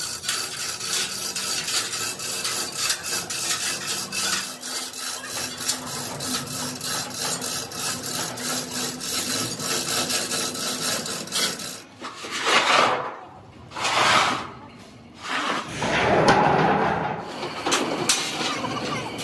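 Rapid, repeated scraping and rasping of a tool worked over metal, with three louder rushing swells in the last seven seconds.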